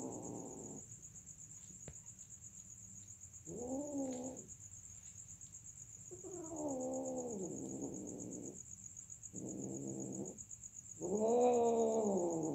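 Domestic cats caterwauling during mating: a series of drawn-out, wavering yowls with pauses between them, the loudest starting near the end.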